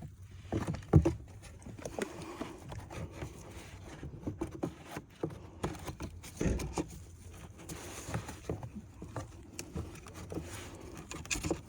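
A new cabin air filter being handled and slid into its plastic housing: irregular rustling with small plastic clicks and knocks, and a sharp knock about a second in.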